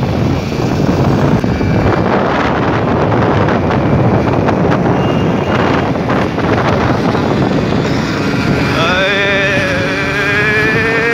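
Wind buffeting the microphone over the steady running of a scooter and its road noise while riding. About nine seconds in, a pitched, voice-like sound with a quivering pitch joins for about two seconds.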